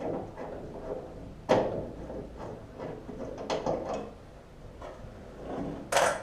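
Clanks and clicks of hand tools and loose metal parts as a car's body panels are unbolted. There is a sharp knock about a second and a half in, a cluster of clicks around the middle and another loud knock near the end.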